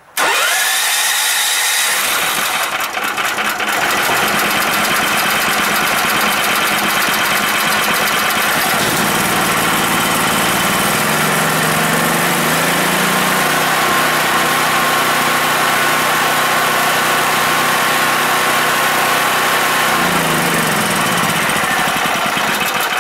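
Yamakoyo SH7000DXE generator's 13 hp engine starting abruptly and running steadily on a small flow of natural gas, its pitch shifting up and down a few times as the gas valve is adjusted.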